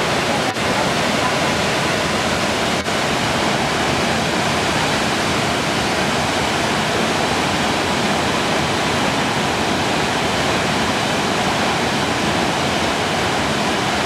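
Middle McCloud Falls, a wide curtain waterfall, pouring into its plunge pool: a steady, unbroken rush of falling water.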